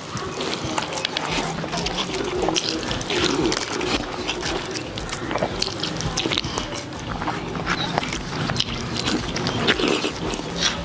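Close-up eating sounds: wet smacking and chewing of handfuls of rice with fish gravy, and the squelch of rice being mixed by hand on a banana leaf, with many small clicks throughout.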